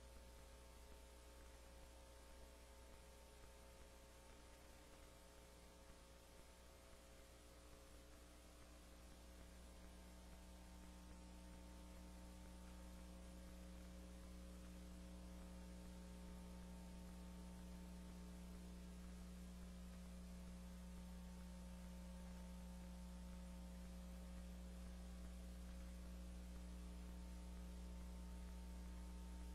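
Near silence with a steady low electrical mains hum, growing slightly louder about ten seconds in.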